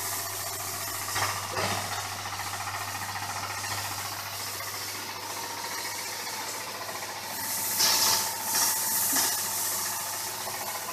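High-pressure cleaning pump running on a motor, with a steady low hum under the hiss of its water jet spraying across the shed floor. The spray hiss swells briefly about a second in and again near eight seconds.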